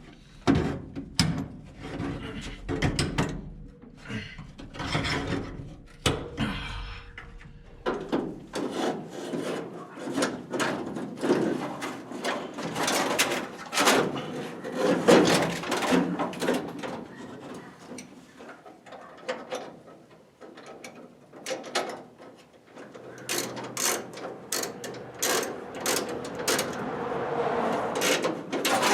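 Hand-tool work on metal car parts: irregular clicks, knocks and clattering of tools and metal pieces being handled and fitted, with rubbing and mechanical rattles.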